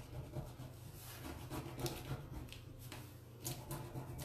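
Hands rubbing and pressing down the plastic backing of a rub-on décor transfer sheet to smooth out an air bubble: faint rustling with a few light crinkles and clicks, over a steady low hum.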